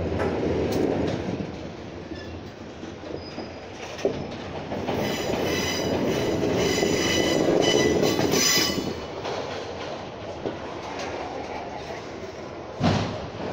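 Train rolling in, its wheels squealing in several high tones for a few seconds in the middle over a steady rumble, with a few knocks from wheels over rail joints and a louder clank near the end.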